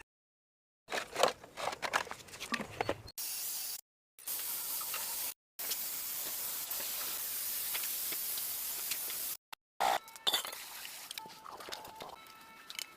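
Workshop sounds in short hard-cut clips: a few light clicks and knocks, then a steady spraying hiss broken off abruptly twice.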